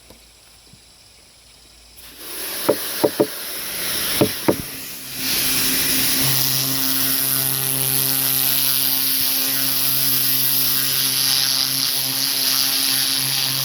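Pressure washer starting up: water begins to hiss about two seconds in with a few short sputters, then the spray rises to a steady loud rush about five seconds in, joined by the pump's steady hum.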